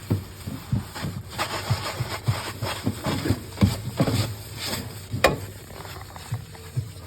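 Irregular knocks, scrapes and rubbing of items being handled and wiped while cleaning out a fridge, with one sharper knock about five seconds in.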